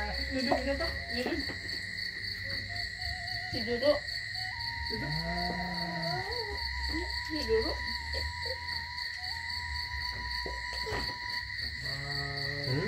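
A steady, evenly pulsing chorus of evening insects, with scattered light clinks of spoons on plates.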